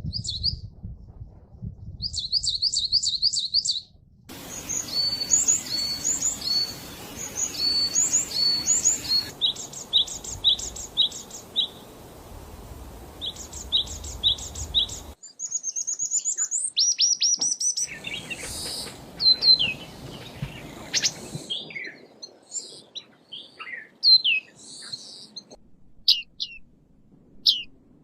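Songbirds chirping and singing: quick series of short, high, repeated notes and upward-sweeping whistles, from several different birds in recordings cut one after another, the background hiss changing abruptly at each cut.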